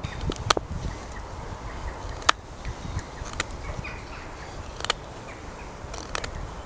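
Knife carving a notch into a wooden peg, the blade pushed across the stick up to a stop cut, with four sharp, separate clicks as it bites and chips come away.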